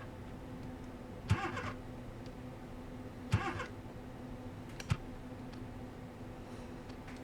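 Three short, sharp attempts to start a car, about two seconds apart, each a brief clunk of the starter that doesn't turn the engine over into running, against a steady low hum. This is the engine failing to catch, which the driver takes for a flooded engine.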